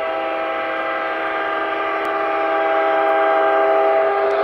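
Diesel air horn from the sound system of an MTH three-rail O-scale SD90MAC model locomotive. It gives one long, steady blast of several tones sounding together, starting suddenly and cutting off after about four seconds, over the steady rumble of the running model train.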